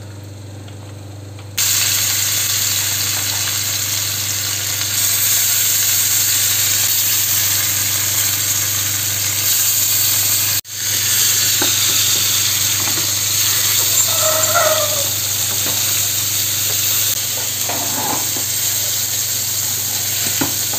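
Hot oil sizzling loudly as marinated fish and prawns fry in coconut oil. The sizzle starts abruptly about a second and a half in, breaks off for a moment near the middle, then carries on over a low steady hum.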